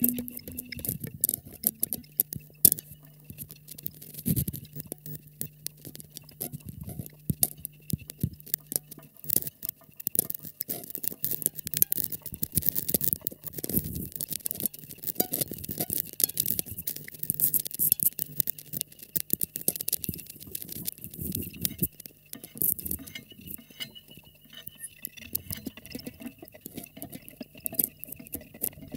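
Experimental improvised music made of dense, irregular small clicks, crackles and clinks, over a faint steady low hum that drops out for a while in the middle and a thin high tone.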